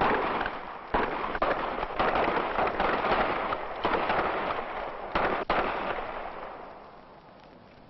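Revolvers firing blanks in a staged cowboy gunfight: a sharp shot at the very start, then a run of further shots over the next five seconds amid a crackling din, fading out after about six seconds.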